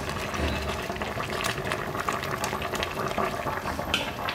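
A stainless steel pot of soup boiling on a portable gas stove, a steady bubbling with many small pops. A short clink of metal utensils just before the end.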